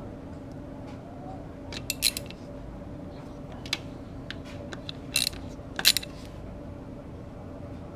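Sharp metallic clinks of a socket and socket wrench being handled: a cluster about two seconds in, a few lighter ones, then the loudest pair just after five and about six seconds in, over a steady low hum.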